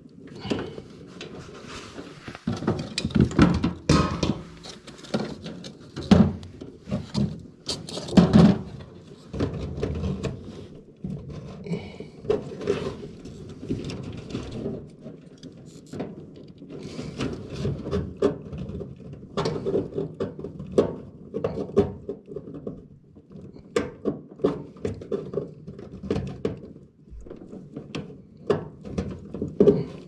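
Irregular clicks, knocks and rustling of hands and hand tools working on the wiring inside an HVAC air handler cabinet.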